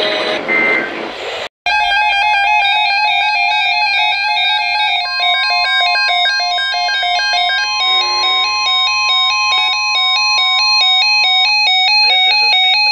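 Handheld weather radio sounding its alert for a flash flood watch: loud electronic beeping that alternates rapidly between two pitches, joined partway through by a steady single tone for several seconds. Before the alert starts, a short beep and noise end the previous clip.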